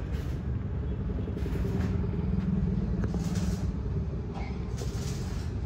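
A vehicle engine idling: a steady low rumble with a faint hum that swells slightly midway, and a few brief faint hisses.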